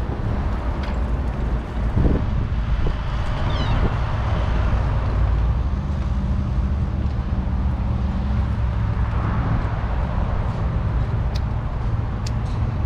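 Steady low outdoor rumble of wind and road traffic, with a brief run of high falling chirps about three and a half seconds in and a few short high clicks near the end.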